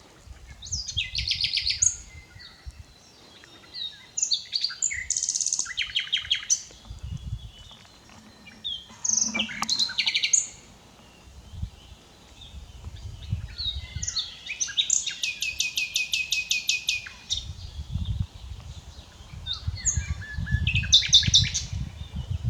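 Common nightingale singing: a series of varied song phrases with short pauses between them, several built from rapid runs of repeated notes, the longest run lasting a few seconds. A low rumble underlies parts of it.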